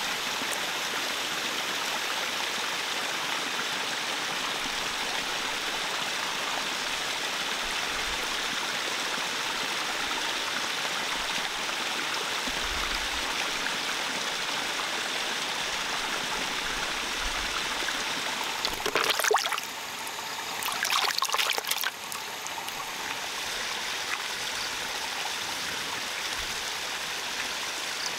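A thin stream of water pouring from the bank into the pond, a steady trickling splash. Roughly two-thirds through come a few seconds of louder, sharp sounds, after which the trickle is a little quieter.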